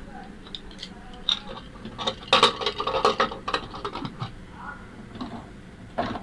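Aluminium pressure cooker lid being fitted and locked onto the pot: a string of metal clinks, knocks and scrapes, busiest about two to three seconds in, with another knock near the end.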